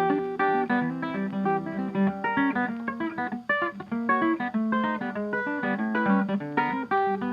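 Background music of plucked acoustic guitar, a busy run of quick picked notes.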